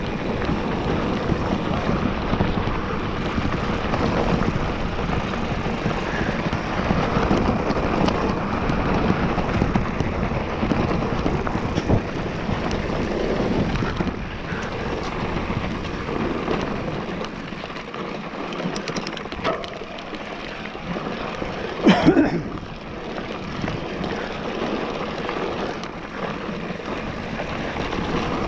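Wind rushing over the microphone and tyres rolling over a dirt trail as an electric mountain bike descends at speed, easing somewhat in the second half, with one brief loud burst about 22 seconds in.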